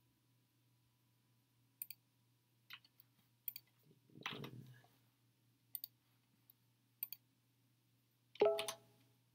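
Computer keyboard and mouse clicks: scattered single taps about a second apart, over a faint steady hum. About four seconds in there is a louder, rougher sound, and near the end a short louder sound with a clear pitch.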